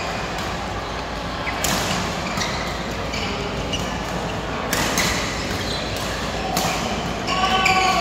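Badminton rackets striking shuttlecocks during doubles rallies on several courts, a string of sharp pops at irregular moments, three of them standing out, echoing in a large hall.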